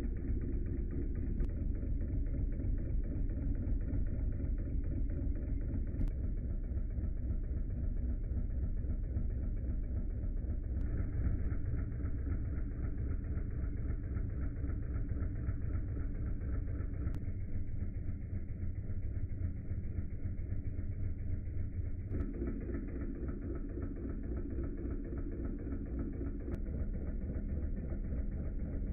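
Wilesco D16 live-steam model engine running steadily, a fast, even pulsing with most of its weight low down.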